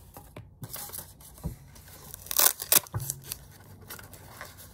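Hands handling a small fabric carry case and paper inserts: rustling and short rasping scrapes, the loudest pair about two and a half seconds in, with a few light knocks.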